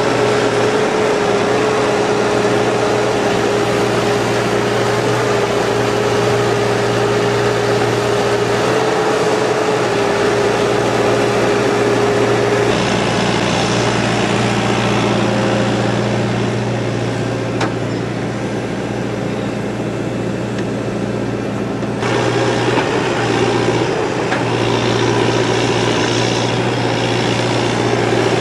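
Excavator diesel engine running steadily, with a steady tone over its drone. The sound changes suddenly twice.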